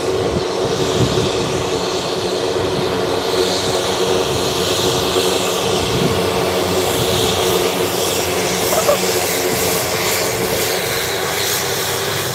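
Cessna 208 Grand Caravan's turboprop engine and three-blade propeller running at taxi power as the plane taxis past. It is a steady drone with a high turbine whine over it that swells and fades a little.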